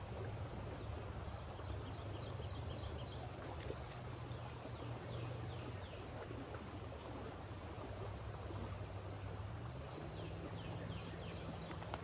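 Shallow creek flowing over gravel, a soft steady wash of water under a low steady hum. A bird sings two runs of short falling high notes, with a single rising whistle between them.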